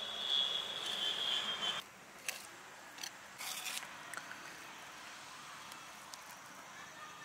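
Fingers mashing and mixing soft rice on plates, and chewing, heard as faint squelches and small clicks. A steady high-pitched whine fills the first two seconds and stops suddenly.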